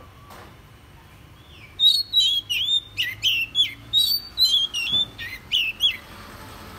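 Oriental magpie-robin singing: a loud run of quick, sweeping whistled notes, about three or four a second, starting about two seconds in and stopping about six seconds in.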